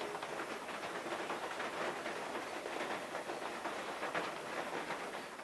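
Steady rain pattering, a dense hiss of fine drops that fades out at the end.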